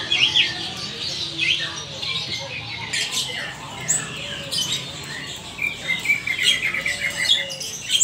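Koak-kaok (helmeted friarbird) calling: short sharp chirps and squawky notes, with a quick run of repeated notes about six to seven seconds in.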